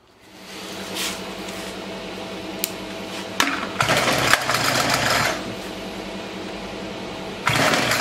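Small 42cc petrol engine on a homemade scooter running steadily, with the sound swelling louder and harsher twice: about four seconds in for over a second, and again near the end.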